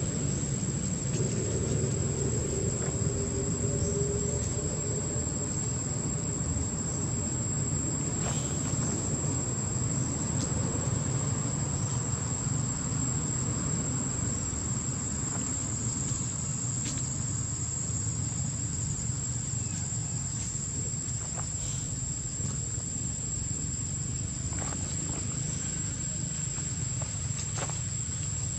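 Insects droning in one steady high-pitched tone, over a steady low rumble, with a few faint clicks here and there.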